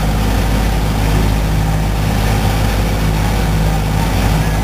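Small passenger ferry's engine running steadily under way, a constant low drone, over a steady rush of water and wind.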